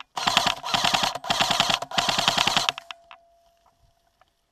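Airsoft rifle firing on full auto in four quick bursts, each a fast, even rattle of shots, stopping about two and a half seconds in.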